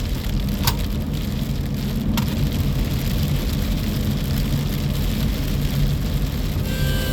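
Storm wind buffeting the microphone as a steady low rumble, with rain, and a few sharp clicks in the first couple of seconds. Faint steady tones come in near the end.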